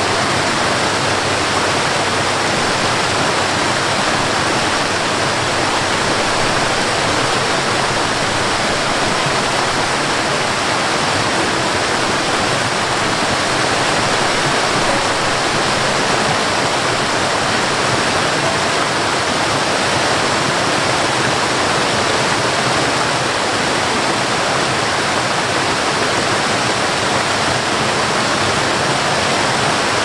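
Waterfall: a steady, unbroken rush of falling water, even in level throughout.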